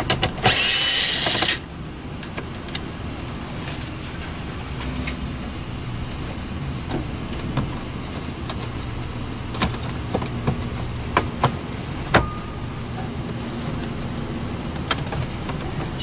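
A cordless drill-driver whirs for about a second, backing a fastener out of the truck's instrument cluster bezel. Scattered clicks and knocks follow as the plastic bezel is worked loose by hand.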